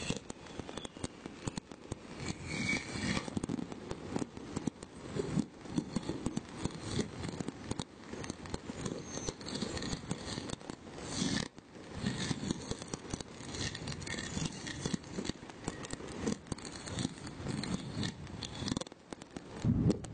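Many fireworks going off at once across a city, a dense, unbroken run of crackling pops and bangs. It cuts off abruptly near the end.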